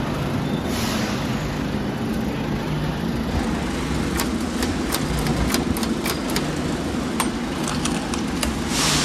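Steady low machine hum, with a run of sharp metallic clicks from about four seconds in as the coin mechanism and turn handle of a 50-cent bouncy-ball vending machine are worked.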